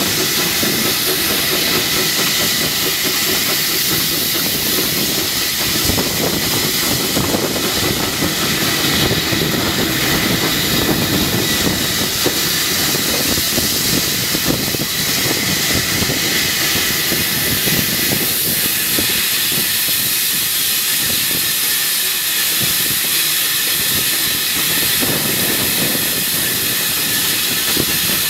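Peckett 0-4-0 tank steam locomotive on the move, heard from beside its cab: a steady hiss of steam over the running noise of the train on the track.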